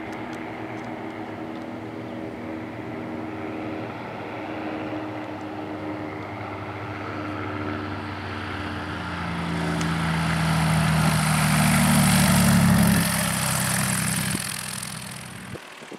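Light single-engine propeller airplane landing on a grass strip: a steady engine drone that grows louder as the plane comes close about 11 to 13 seconds in, with a rushing hiss of prop and air at its nearest, then quickly falls away.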